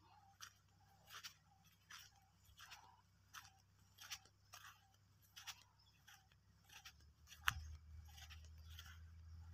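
Faint footsteps on dry, crusted soil and crop stubble at a steady walking pace, about one step every 0.7 seconds. A sharper click comes about seven and a half seconds in, and a low rumble starts near the end.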